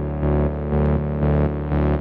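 Electronic background music: a sustained synth chord pulsing in a steady rhythm.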